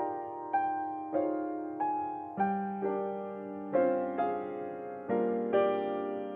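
Slow solo piano music: single notes struck about twice a second, each fading away, with a lower held note joining about halfway through.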